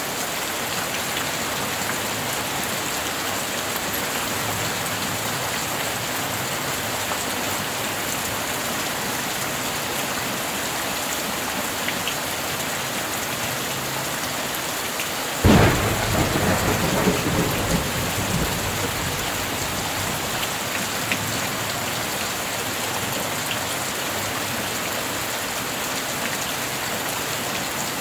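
Steady heavy rain, with a single sudden thunderclap about halfway through that rumbles and dies away over a few seconds.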